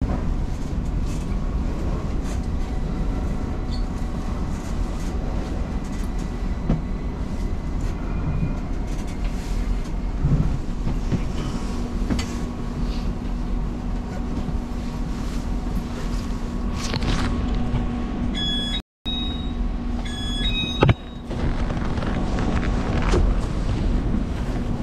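Taipei metro train running, heard from inside a crowded car as a steady low rumble and rail noise. Near the end a few short high electronic tones sound, with a momentary cut-out in the sound between them.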